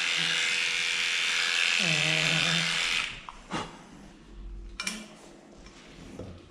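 Electric dog clippers buzzing steadily as they shave a pug's coat. They cut off abruptly about three seconds in, leaving a few quiet clicks of handling.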